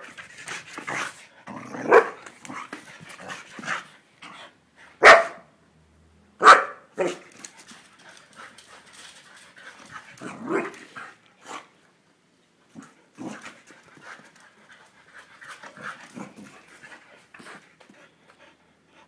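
A boxer dog barking in several short, loud bursts, with softer noises between, in happy play.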